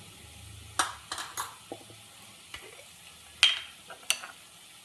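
Wooden spatula stirring a spinach and corn mixture in a pan, knocking and scraping against the pan several times, the loudest knock a little past the middle.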